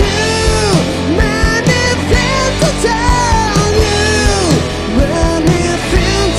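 Live rock band playing: a male lead singer sings drawn-out phrases that slide down at their ends, over electric guitars, electric bass and a drum kit keeping a steady beat.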